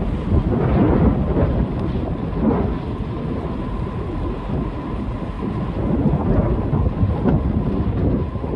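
Wind buffeting the microphone of a camera on a moving bicycle: a deep, uneven rumble that swells and eases in gusts.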